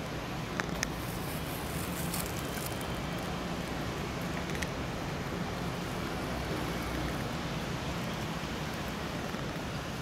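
Steady outdoor background noise with a low hum, and a few faint short ticks about a second in and again near the middle.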